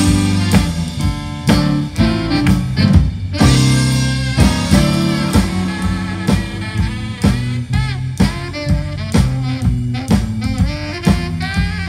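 Live blues band playing an instrumental stretch: saxophones carry the lead over a steady drum-kit beat, with bass, guitar and keyboard underneath.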